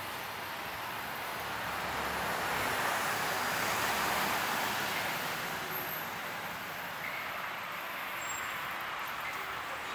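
A vehicle passing by on a city street. Its noise swells to a peak about four seconds in, then fades back into steady traffic hum.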